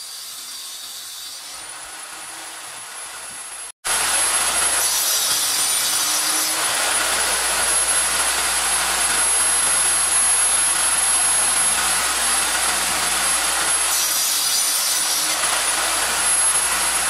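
Table saw running and cutting a board, with a steady high whine over the cutting noise. About four seconds in there is a break, then a much louder stretch of the saw running.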